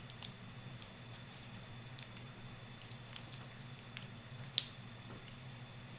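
Faint chewing of a bite of a chocolate, caramel and pretzel candy bar: scattered small mouth clicks, about one a second, over a low steady room hum.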